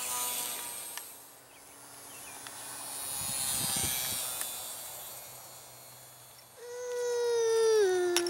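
Electric motor and propeller of an ultra-micro RC biplane (E-flite UMX PT-17 Stearman) whining in flight, swelling and fading as it flies around. Near the end a louder, steady whine holds for a second or so, then drops in pitch and cuts off.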